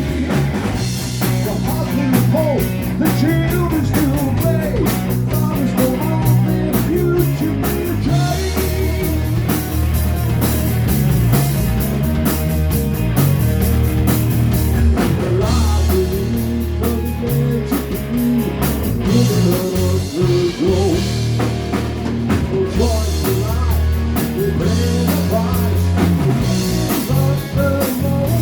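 Live rock band playing, with a drum kit and guitar over sustained low bass notes.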